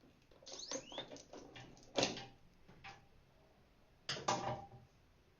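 A run of clicks and knocks with a couple of short squeaks, and two louder knocks about two and four seconds in.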